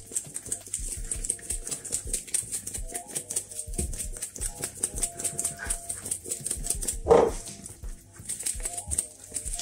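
Seasoning shaker jar shaken hard over raw oxtail: a fast, steady run of dry rattling ticks. A short, louder pitched call cuts in once about seven seconds in.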